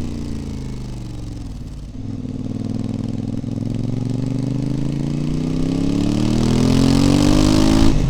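Voge DS 800 Rally's parallel-twin engine through a Scorpion Serket exhaust with the baffles removed, recorded close to the silencer. The exhaust note falls away off the throttle for about two seconds, then picks up and climbs steadily in pitch and loudness as the bike accelerates, with a brief break near the end as it changes gear.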